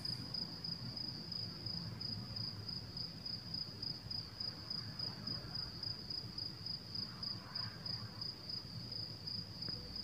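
A chirping insect: a steady, high-pitched trill pulsing evenly several times a second, over a faint low hum.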